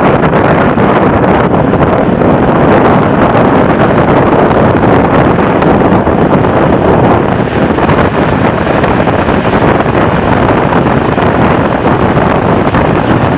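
Wind rushing hard over the microphone held out of a moving passenger train's window, mixed with the train's running noise on the track. Loud and steady.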